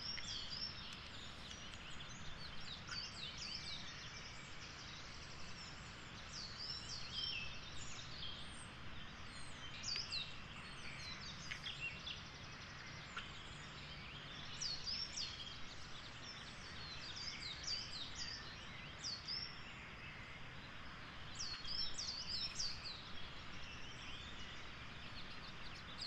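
Woodland songbirds singing and calling, with many short, sharp, high notes in quick runs throughout, a pied flycatcher calling among them.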